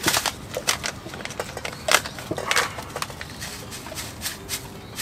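Irregular light clicks and knocks of tableware and utensils being handled during a meal.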